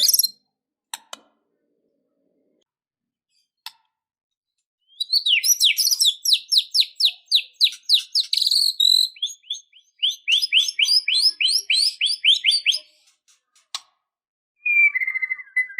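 White-rumped shama (murai batu) singing: two long runs of quick, sharp down-slurred notes, then a short whistled phrase near the end.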